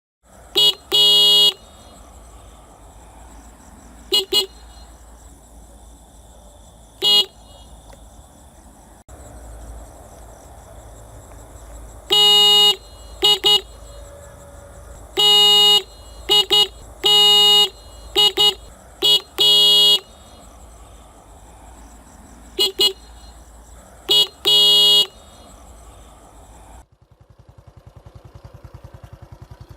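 Motorcycle horn sounded again and again: quick single and double toots mixed with longer presses of up to about a second, each a buzzy pitched beep. A low steady rumble runs underneath, and near the end it turns into a fast, even low pulsing.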